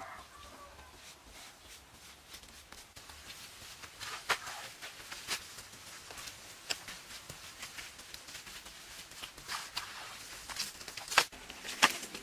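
Eating noises: scattered sharp clicks and crackles, sparse at first, then more frequent from about a third of the way in, with the loudest ones near the end.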